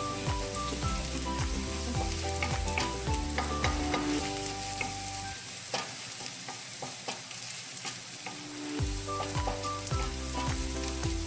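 Chopped onion sizzling in hot oil in a steel wok, with a wooden spatula stirring and scraping across the pan. Background music plays underneath.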